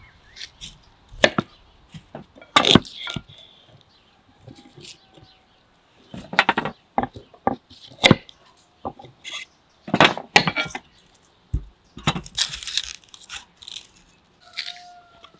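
Kitchen knife cutting broccoli, carrots and cauliflower on a wooden cutting board: irregular sharp knocks of the blade meeting the board, some coming in quick runs.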